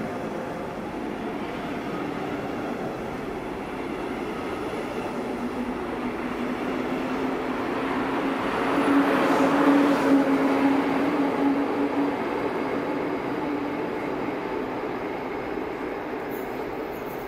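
DB double-deck regional train hauled by a class 143 electric locomotive pulling out and rolling past, with coaches and wheels rumbling and a steady hum that rises slightly in pitch as it gathers speed. The sound grows to its loudest about halfway through as the locomotive passes, then fades as the train moves off.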